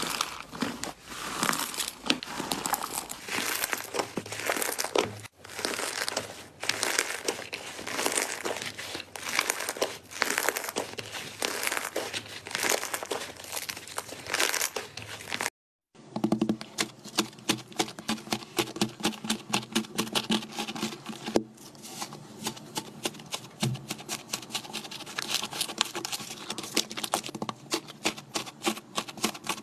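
Slime being squished, making dense crackling and popping clicks. A short break about halfway through, then quicker, more regular clicks.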